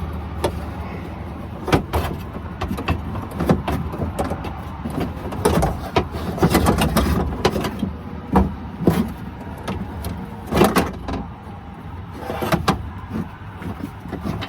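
An unbolted window regulator from a 1999–2006 Chevy Silverado/Suburban door being pulled out through the inner door panel: irregular metal clanks, knocks and scrapes as its greased rails and frame catch against the door shell, over a steady low hum.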